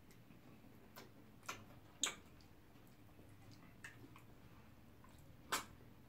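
Close-up eating sounds: about six short, wet mouth smacks and clicks from people eating pounded yam and soup with their fingers, the loudest about two seconds in and near the end.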